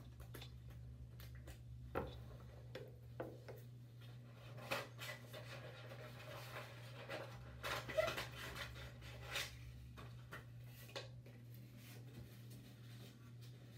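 Paper being handled and shaped by hand: scattered rustles and crinkles, with a few sharper clicks about two and eight seconds in, over a steady low hum.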